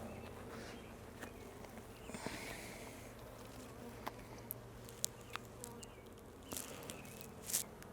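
Honey bees from an open hive colony buzzing in a steady hum, with a few light clicks scattered through.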